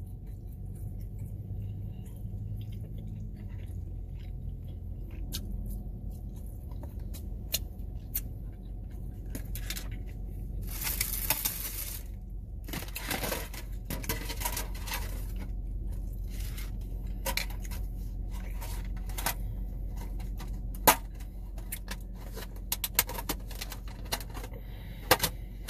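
Eating and food-container handling: a fork clicking and scraping on a plastic takeout tray, with chewing, a brief rustling burst about eleven seconds in, and a run of plastic clicks near the end as a clear plastic clamshell container is handled, over a steady low hum.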